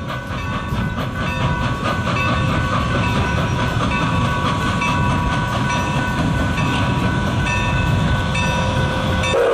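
Milwaukee Road 261, a 4-8-4 Northern steam locomotive, approaching with its train: a loud, steady rumble of exhaust and wheels, with ringing tones struck about once a second, typical of the locomotive's bell. Its steam whistle starts to blow right at the end.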